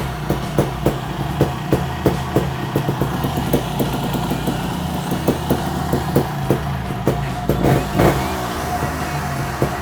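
TRS 300 RR trials bike's two-stroke single-cylinder engine running steadily at tickover, with a run of sharp pops over its low steady note. It is running on a replacement CDI unit, and the owner finds no misfire.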